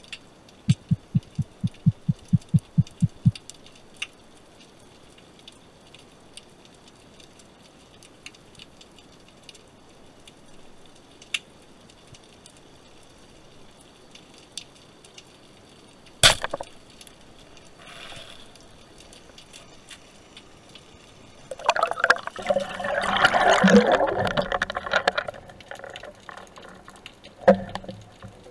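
Underwater sound of a speargun firing: one sharp crack about halfway through. A few seconds later comes loud splashing and bubbling churn as the speared mullet is handled near the surface. Near the start there is a quick run of about a dozen low thuds.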